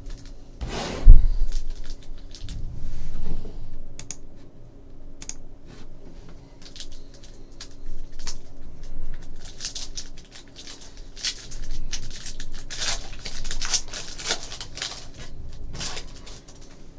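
Foil trading-card packs being handled and torn open, the wrappers crinkling and rustling, busiest in the second half. A heavy thump on the table about a second in.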